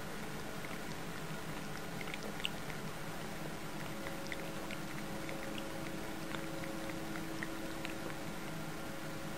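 Calico cat licking its lips close up after eating: faint wet tongue clicks and smacks, scattered and irregular, over a steady background hiss with a faint hum.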